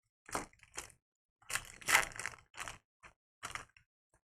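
A trading card pack's wrapper crinkling and rustling as it is handled, in a string of short crinkles, the loudest about two seconds in.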